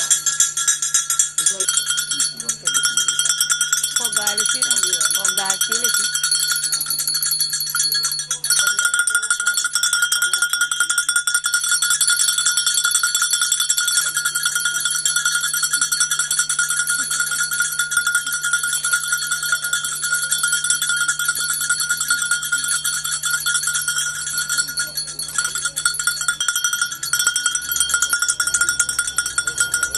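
A metal bell struck or shaken very rapidly and without a break, ringing at a few steady pitches.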